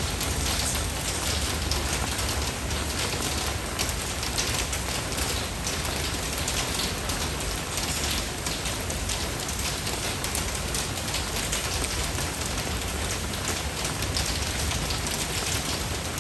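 Steady rain falling, a dense even hiss of countless individual drops hitting a surface, with no lull or change.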